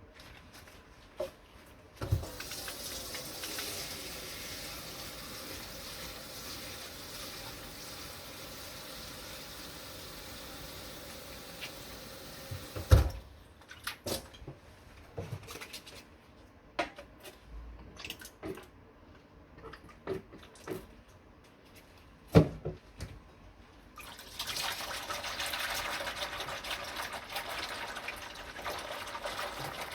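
Kitchen tap running into a sink for about ten seconds, then shut off. Dishes and pans knock and clink against each other for several seconds, and the tap is turned on again for the rest.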